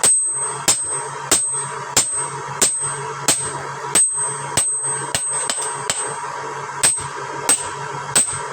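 Hammer blows on steel over an anvil, one about every two-thirds of a second in a steady rhythm, each strike leaving a high metallic ring.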